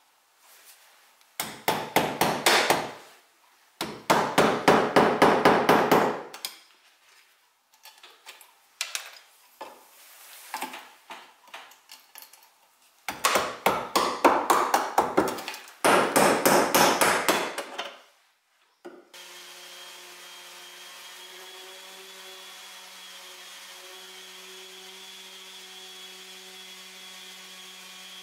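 A hammer tapping rapidly, several blows a second, in four runs of two to three seconds each. About two-thirds of the way through, the tapping gives way suddenly to a steady mechanical hum with a faint high whine.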